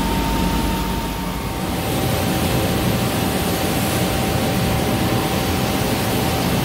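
Hwacheon Hi-Tech 450CL CNC lathe running under cut, a steady high whine over an even hiss of coolant spray. The whine steps down slightly in pitch under two seconds in.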